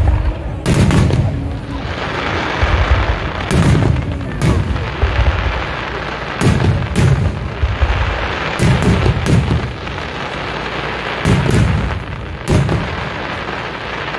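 Aerial firework shells bursting: about ten booms at irregular intervals, some in quick pairs, over a steady hiss that continues between them.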